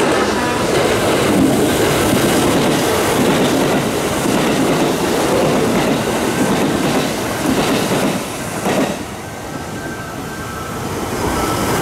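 Kintetsu limited express train passing close by, a loud rumble with wheels clattering over the rail joints. The noise drops away about nine seconds in, then another train's rumble builds near the end.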